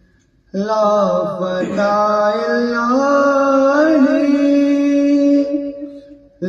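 A man chanting unaccompanied, holding one long drawn-out phrase whose pitch bends up and down. The phrase fades near the end, and a new one begins just as it closes.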